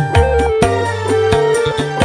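Live band playing an instrumental passage: a sustained keyboard melody over regular drum strikes and bass.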